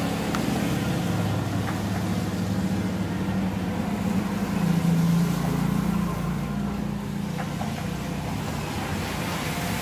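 LG refrigerator compressor running with a steady low electric hum, freed from its seized state and refilled with oil.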